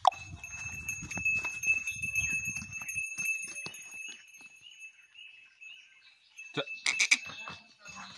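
A small bell on a young calf's neck clinking irregularly as the calves trot and jump about, with scattered hoof steps, over a steady high-pitched tone in the background. A quick cluster of louder clinks comes about seven seconds in.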